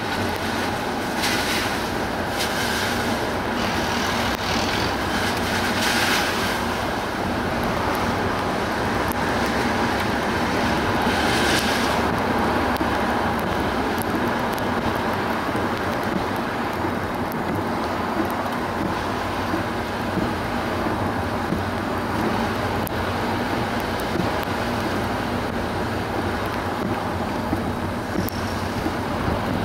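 A car driving along a road: steady tyre and road noise over a low engine drone, with a few brief swells of hiss in the first dozen seconds.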